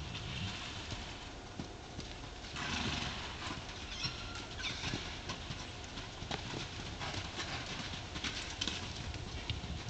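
Horses galloping loose over dirt footing, their hooves thudding in an irregular, rapid patter. Wind gusts over the microphone, most strongly about two and a half seconds in.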